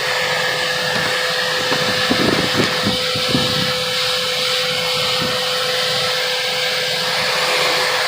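Bissell Lift-Off vacuum cleaner running steadily with a constant whine. A few brief rattles come through between about two and three and a half seconds in.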